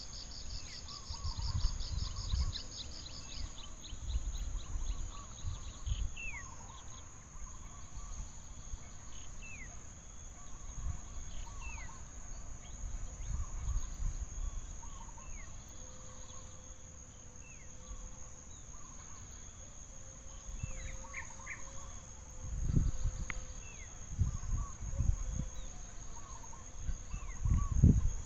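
Forest ambience: a steady high-pitched insect drone, with a fast trill in the first two seconds and scattered short falling bird chirps and calls. Low rumbles come and go, loudest about two-thirds of the way through and near the end.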